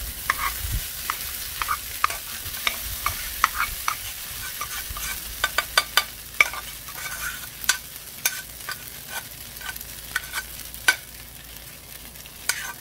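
Cooked white rice being spooned out of a pot onto a hot, oiled flat-top griddle: a steady sizzle, with frequent sharp clicks and scrapes of the spoon against the pot.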